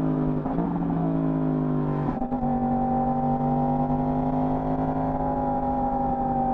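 Yamaha R1 inline-four engine through its stock exhaust, pulling steadily at mid revs. There is a brief gear change about half a second in and another just after two seconds, after which the revs hold and ease slowly down.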